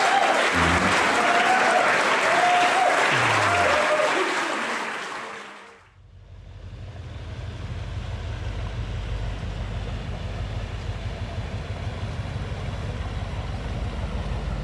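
Audience applauding and cheering, fading out about six seconds in. Then a lobster boat's engine runs with a steady low drone as it passes.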